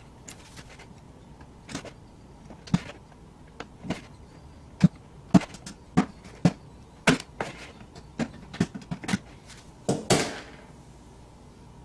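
Irregular light knocks and clicks from small plastic parts being handled and set down on a plastic cup, with a short scraping rustle about ten seconds in.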